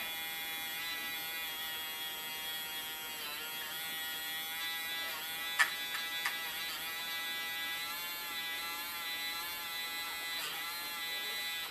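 Badger battery-powered paint mixer's small motor buzzing steadily as its wire whisk stirs thinned paint in a cup, its pitch wavering slightly under the changing load, with two light ticks a little past halfway. It cuts off at the end.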